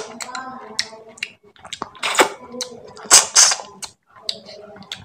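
Close-miked wet mouth sounds of eating fish head curry and rice: lip smacks, clicks and chewing, with sharper smacks about two and three seconds in.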